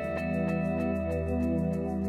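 Background instrumental music with held, sustained chords.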